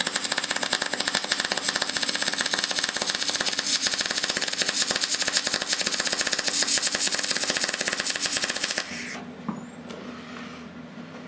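Deca Decastar 150E MIG welder with shielding gas laying a bead on steel: the arc crackles in a fast, steady stream, then stops about nine seconds in. The wire feed speed is set a little low, which the welder says could be heard in the arc.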